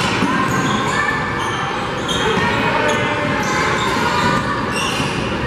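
Basketball game on a hardwood gym floor: a ball being dribbled and sneakers squeaking, with players' and spectators' voices echoing in the gym.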